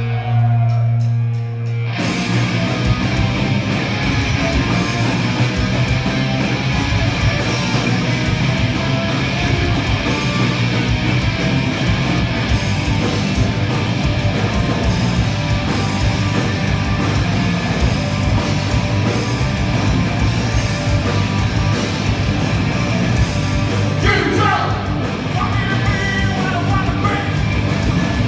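Live punk rock band playing loud on electric guitars and drums. A held low note opens, the full band comes in about two seconds in, and vocals come in near the end.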